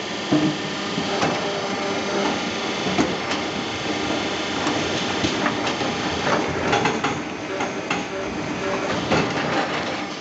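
5-foot log debarker running as it strips bark from a sengon log: a steady dense machine noise with a low hum, broken by frequent sharp knocks and clatters at uneven intervals.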